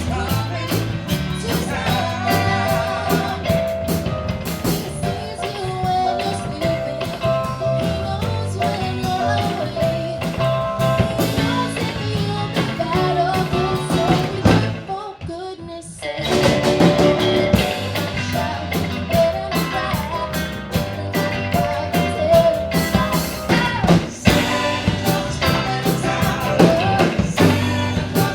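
Live band music in a rock-and-roll style with drum kit and guitar. About halfway through the band drops out for a second or so, then comes back in.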